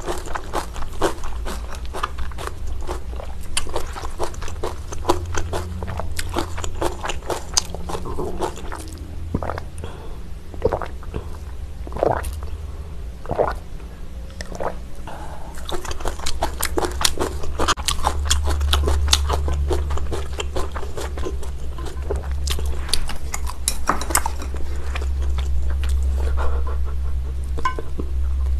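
Close-miked eating sounds: chewing of rice-cake tteokbokki, with many small wet mouth clicks and smacks, over a steady low hum.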